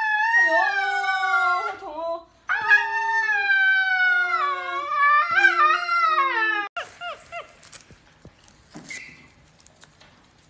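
A husky howls in two long, wavering cries with a pause between them, the second longer. After that it goes much quieter, with only a few faint short squeaks.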